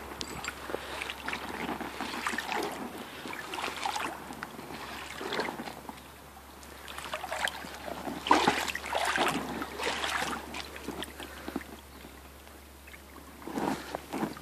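Rubber boots wading through a shallow gravel-bottomed creek, splashing and sloshing the water with each uneven step. The loudest splashes come about eight to ten seconds in.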